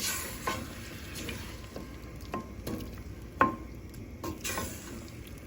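Thick potato and tomato curry boiling in a pan: a steady sizzle with scattered sharp pops and taps.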